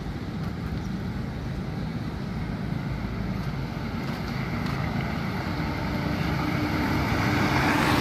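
Road traffic noise with a low engine hum, growing louder near the end as an auto-rickshaw's engine draws close.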